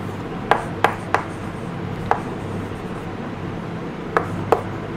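Chalk writing on a chalkboard: about six sharp taps and short scrapes as the letters go down, in two quick clusters with a gap between.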